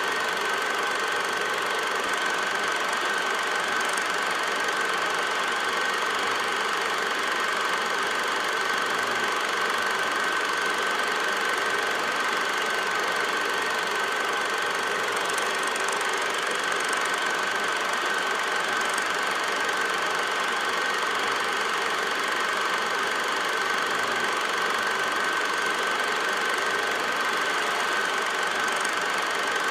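8mm film projector running: a steady mechanical whirr and clatter with a constant high whine.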